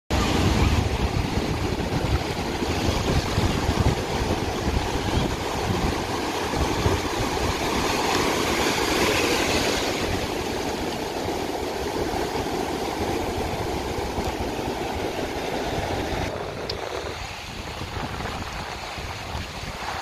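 Ocean surf breaking and foam washing up the shore as a continuous rush, with wind rumbling on the microphone. The sound thins and drops a little about sixteen seconds in.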